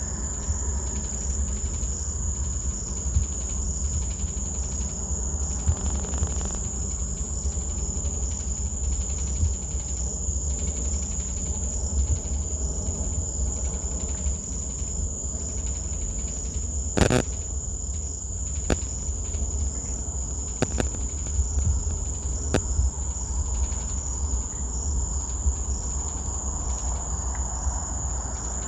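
A steady, unbroken high-pitched insect drone, cricket-like, over a constant low rumble. A few sharp clicks come near the middle.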